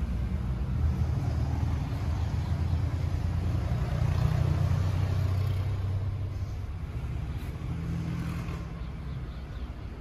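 Belarus tractor's diesel engine running steadily at idle, a low, even hum that gets a little quieter toward the end.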